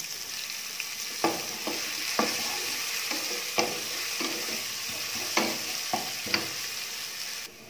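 Sliced onion and cumin seeds sizzling in hot oil in an aluminium pressure cooker, being fried to light brown. A wooden spatula stirs them, knocking and scraping against the pot about seven times. The sizzle drops away near the end.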